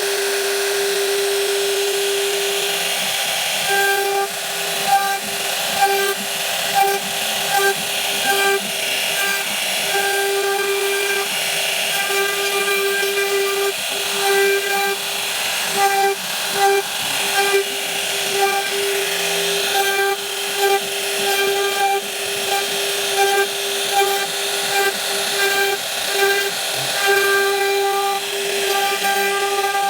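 CNC router spindle running with a steady high whine, cutting wood. From a few seconds in, the sound swells and dips about once a second as the bit works through the wood.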